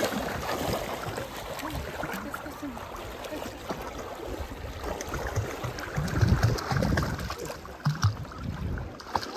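Shallow seawater splashing and sloshing as a person and a large dog wade through it, in a steady wash of small irregular splashes. Wind buffets the microphone in low rumbles about six to seven seconds in and again near the end.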